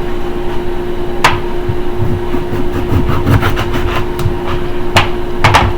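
Knife cutting food on a cutting board: a few sharp knocks, about a second in and twice near the end, with fainter taps and thuds between them, over a steady appliance hum.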